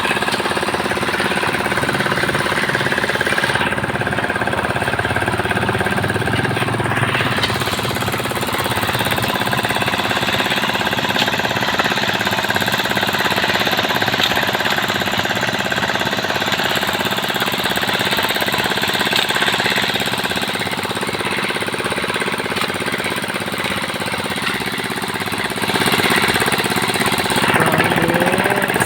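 Road-construction machinery running with a continuous, rapid hammering rattle.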